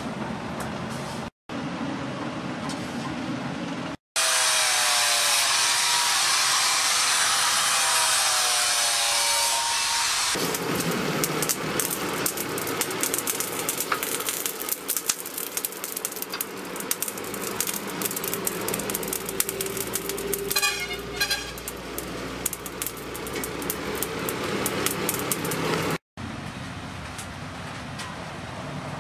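Coal forge fire burning around a sword blade: a steady rush with many quick crackles and pops from the burning coals.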